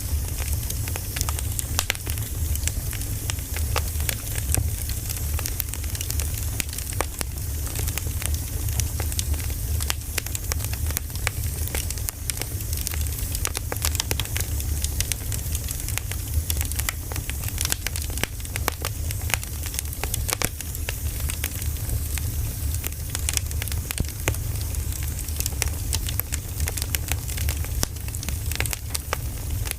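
Wood bonfire burning, with constant irregular crackling and popping over a steady low rumble.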